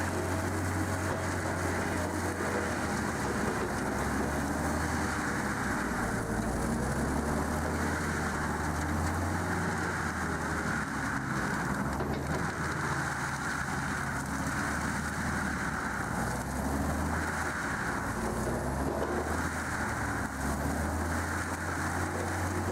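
Heavy machinery engine running continuously, its low drone swelling and easing every few seconds as the load changes, with a noisy working clatter rising and falling over it.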